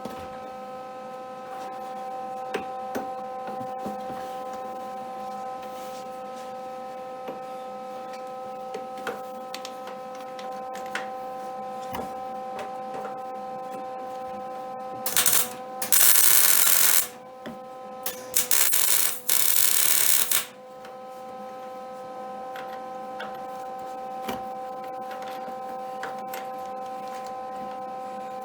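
Electric welding arc crackling in two bursts of about two seconds each, a little past the middle, while a bracket on an ATV frame is welded. A steady electrical hum runs underneath.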